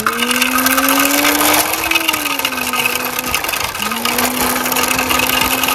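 A child's voice imitating a vehicle engine, a buzzing, rasping "brrrr" on one steady pitch. It is held for about three seconds, breaks off for a short breath, then goes on again.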